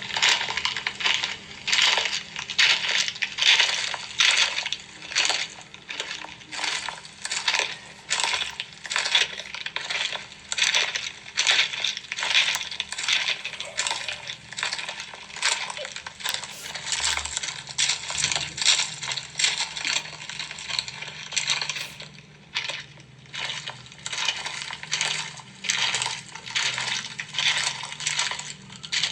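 Rounded pieces of red and orange chalk crunching and crumbling as they are crushed, in a long run of sharp crunches about two a second, with a short lull about three quarters of the way through.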